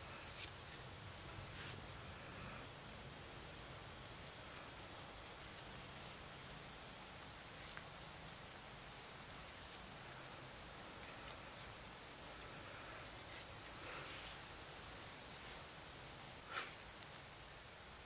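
Steady high-pitched chorus of chirring insects, with a few faint scrapes of a knife blade shaving curls from a wooden feather stick. The insect sound drops away abruptly near the end.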